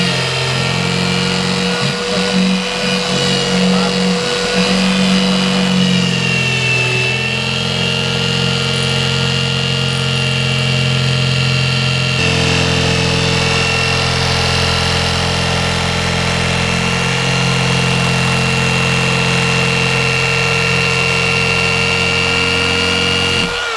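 Skil variable-speed corded jigsaw cutting through a sheet of HDPE plastic, its motor running steadily at a constant pitch under load.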